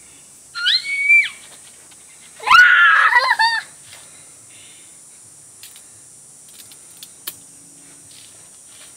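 A person gives a short high-pitched squeal, then about two seconds later a louder, longer shriek that wavers in pitch as it ends.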